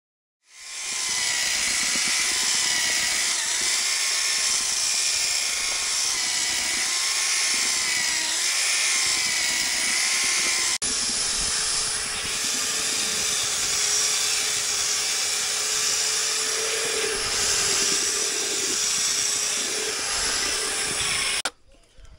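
Electric power tool running continuously, its motor whine wavering slightly as the load changes. About halfway through there is a sudden cut to another stretch of the same kind of running with a lower whine.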